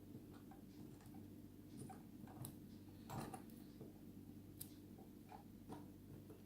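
Faint, scattered small clicks and ticks from the tiny pins and springs of a gutted Abus 72/40 padlock being handled, over a steady low hum.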